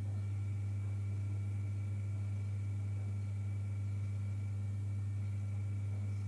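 A steady, low electrical hum with a few faint higher tones above it.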